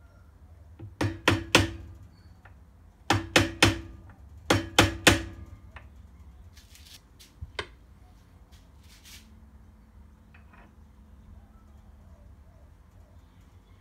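A small hammer tapping a Woodruff key into the keyway of a mower engine's output shaft: three quick bursts of three or four sharp metal taps, then two lighter taps a couple of seconds later.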